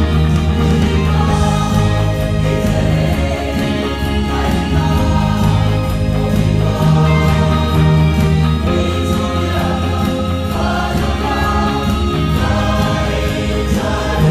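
A mixed choir of men's and women's voices singing a gospel song in held chords.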